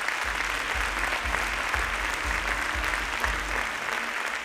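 Audience applauding, a dense steady clapping.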